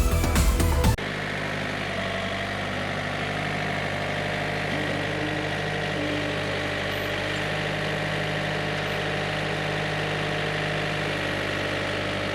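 Background music for about the first second, then the John Deere 110 backhoe's engine running steadily.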